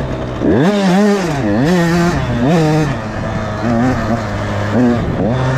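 Husqvarna TC 85's 85cc two-stroke motocross engine revving up and dropping back several times in quick succession as the bike is ridden around the track, the pitch climbing with each throttle opening.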